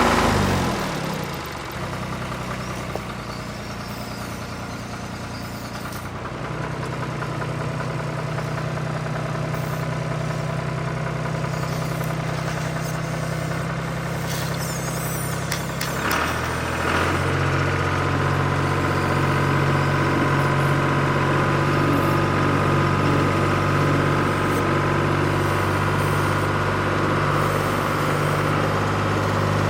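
Engine running at idle that steps up in speed and loudness about 17 seconds in, with a short clatter just before the change. It is the engine sound of an RC construction model at work.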